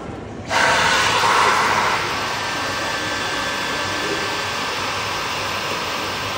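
Dyson Gen5detect cordless stick vacuum switching on about half a second in with a loud, steady rush of suction airflow and a faint whine. It is loudest for the first second or so, then settles to a slightly lower, even level.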